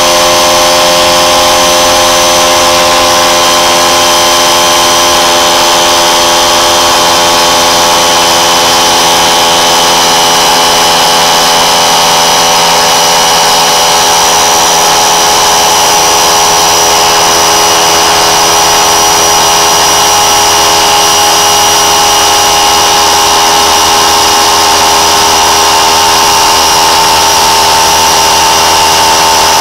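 Harbor Freight McGraw 3-gallon, 1/3 HP oil-free pancake air compressor running, filling its empty tank toward 60 PSI. A loud, steady motor-and-pump drone whose pitch sinks slowly as the pressure builds.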